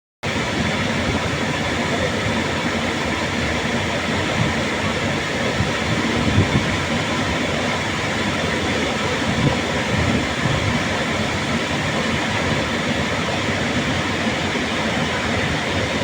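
Waterfall, its falling water making a steady, full rushing noise with no let-up.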